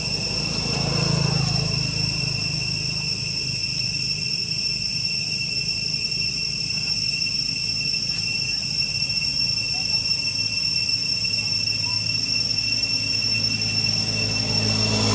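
Steady, high-pitched drone of insects holding several even tones throughout, with a low hum underneath.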